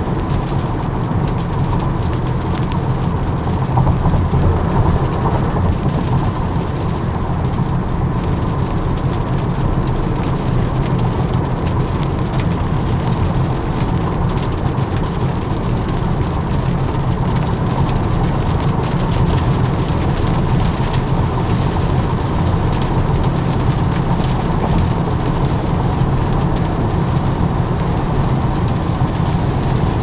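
Steady low rumble of tyres on a wet highway from a 2023 Tesla Model Y, an electric car with no engine note, with the hiss of rain over it.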